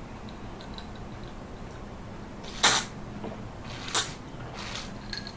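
Eating crisp food: two loud, short crunches a little over a second apart, then a fainter third one.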